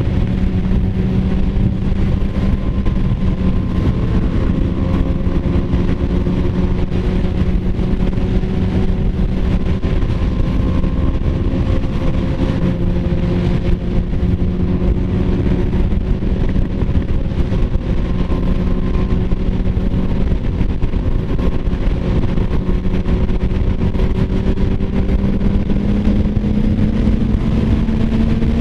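Suzuki sport bike's four-cylinder engine running at steady cruising revs at highway speed, under heavy wind rush on the camera microphone. Near the end the engine note rises as the bike speeds up.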